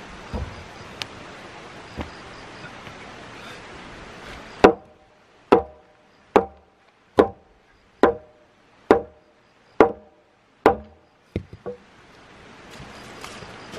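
Wood being chopped with a hand blade: seven evenly spaced blows, a little under one a second, each with a short ringing note, then two lighter knocks.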